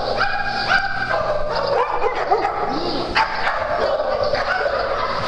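Many dogs barking and yipping at once, short calls overlapping one another without a break.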